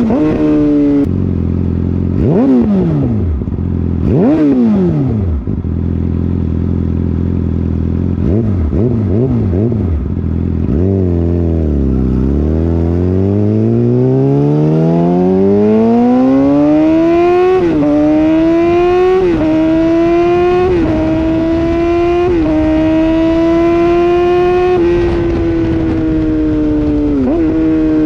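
A 2013 Yamaha R6's inline-four engine through a loud aftermarket M4 Street Slayer exhaust with the muffler box deleted. It falls to idle, is blipped twice, then pulls away and climbs through several gears, its pitch stepping down briefly at each upshift, with quick downshift blips near the end.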